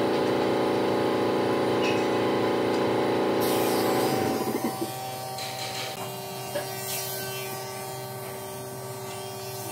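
A workshop machine's electric motor humming steadily, then cutting off about four seconds in, leaving a quieter steady hum.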